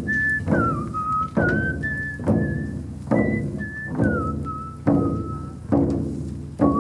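Large hand-held frame drums struck with beaters in a slow, steady beat, a little more than one stroke a second, each stroke ringing low. Over the drumming, someone whistles a slow melody of held notes that step down in pitch.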